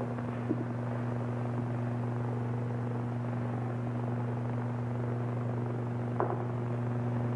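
Steady low hum and hiss of an old film soundtrack, with a faint click about half a second in and a sharper one about six seconds in.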